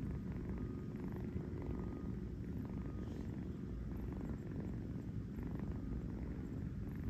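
Kitten purring steadily as it dozes, a continuous low rumble.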